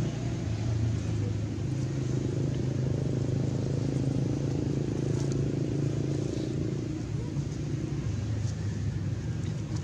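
A motor vehicle engine running steadily, a low even hum that weakens about seven seconds in.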